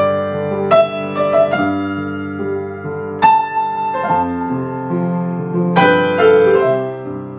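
Piano music playing slow, sustained chords and melody notes, fading out at the end.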